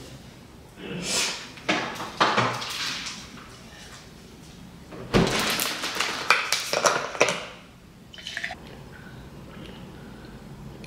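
A drink being poured into a glass in bursts, with a sharp knock about halfway through and a quick run of clinks after it.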